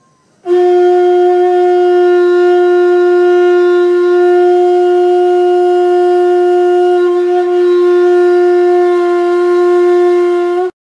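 Conch shell blown as a horn: one long, steady note with a slight waver partway through, which cuts off suddenly near the end.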